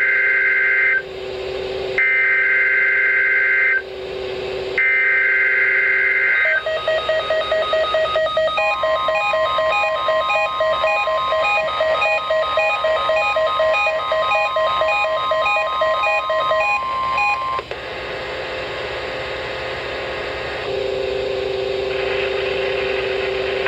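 NOAA Weather Radio test alert playing through receivers. First come three harsh, screechy bursts of SAME digital header data, each under two seconds with about a second between them. Then the 1050 Hz warning alarm tone is held steady for about nine seconds, while the weather alert radios (a Midland WR-300 and a Reecom R-1630) beep rapidly over it, before fainter radio hiss and hum.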